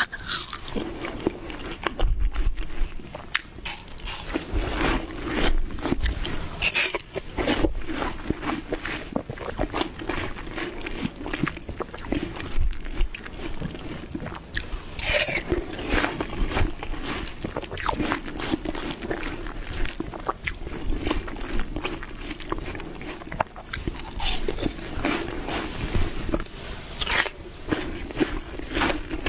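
Watermelon being bitten and chewed: a long run of crunching bites and chewing, with many short crisp crunches in close succession.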